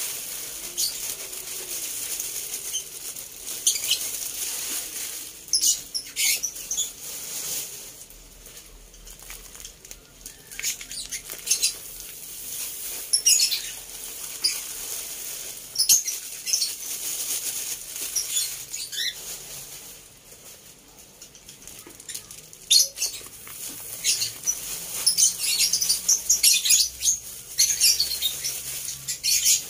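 Yellow millet seed pouring from a plastic bag onto a heap of grain in a plastic basin: the seeds pattering down as a steady hiss, with the bag crinkling in short bursts again and again.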